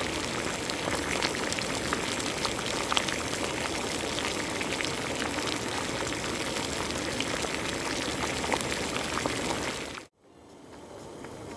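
Chicken adobo's soy-and-vinegar liquid boiling hard in a pot, a steady bubbling with many small crackling pops. It cuts off abruptly near the end.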